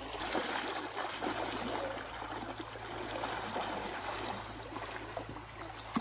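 Shallow, fast-flowing river water rushing steadily over its bed.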